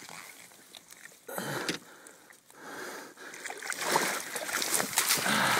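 Water splashing and sloshing in shallow, grassy bank water, with rustling and handling noise: a short burst of splashing, then louder, more continuous splashing and clicks through the second half.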